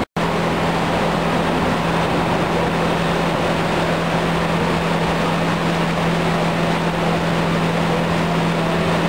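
Industrial material washer on ROSTA AB 50-2 rubber suspension mounts running: steady machinery noise with a constant low hum, after a brief break at the very start.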